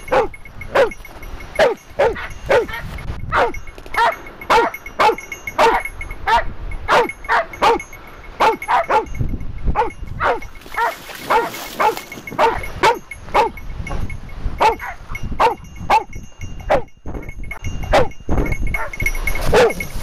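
Hunting dog barking over and over at a cornered wild boar, about two barks a second, each bark falling in pitch.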